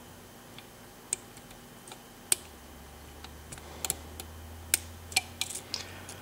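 Lock pick and tension wrench working the pins of a six-pin Yale drawer lock with security pins: irregular small metallic clicks and ticks, with a sharper click about two seconds in and another near five seconds, more frequent in the second half.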